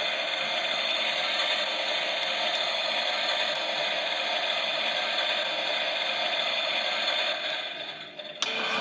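Small battery motor of a toy Miele washing machine running and turning its drum, with a steady whirring rattle that dies away near the end, followed by a sharp click.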